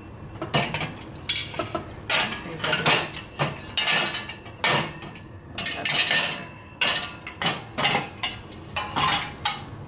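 Glass cookware lids clinking and knocking against a chrome wire lid-and-pot organizer rack as they are slotted in and moved around, a run of irregular clatters.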